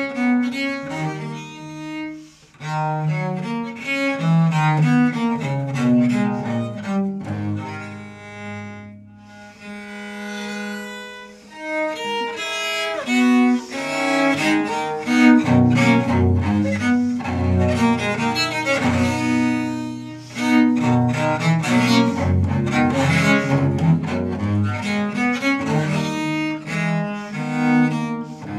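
Solo bass viola da gamba played with a bow, moving between low single notes and chords. It pauses briefly about two seconds in, plays a quieter, higher passage around ten seconds in, and dips again near twenty seconds.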